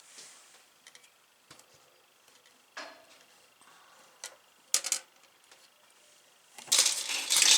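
Plastic model-kit sprues being handled: a few scattered light clicks and taps, then a louder rustling, crinkling burst near the end.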